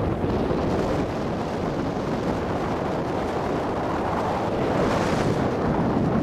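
Wind rushing over the microphone of a camera carried by a moving skier, mixed with the hiss of skis sliding on groomed snow; the hiss grows sharper about five seconds in.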